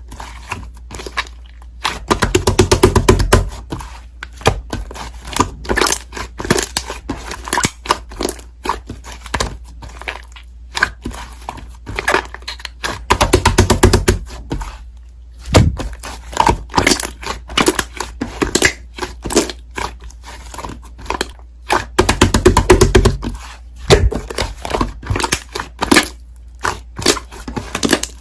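Slime being pressed and stretched by hand, giving rapid crackling pops and clicks. There are three louder, denser runs of popping: about two seconds in, around thirteen seconds and around twenty-two seconds.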